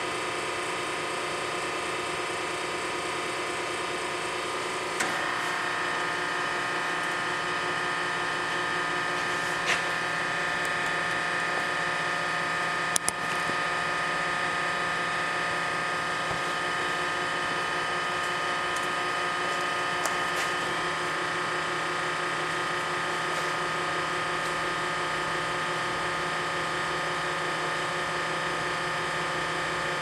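Enerpac hydraulic power unit of a Parker 83C-001 hose crimper running steadily through a crimp cycle, a continuous machine hum with several fixed tones. About five seconds in the sound shifts and grows slightly louder, and a few sharp clicks come through it.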